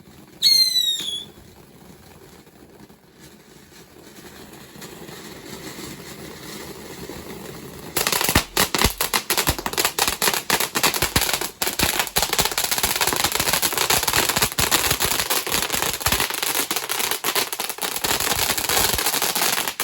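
Fireworks going off: a brief falling whistle under a second in, a faint hiss that slowly grows, then about eight seconds in a dense, rapid crackling of many small bangs that runs for about twelve seconds before stopping.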